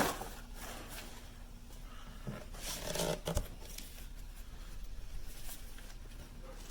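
Faint handling sounds: a sharp click at the start, then rustling and a few light knocks about three seconds in, over a low hum.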